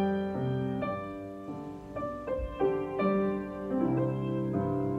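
Solo grand piano playing a slow ballad: sustained chords over held bass notes. The playing softens around the middle, then grows fuller again.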